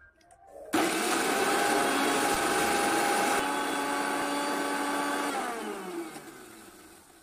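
Electric mixer-grinder (mixie) grinding a cut onion in its jar. The motor starts suddenly under a second in and runs with a steady whine for about four and a half seconds. It is then switched off and winds down with a falling pitch.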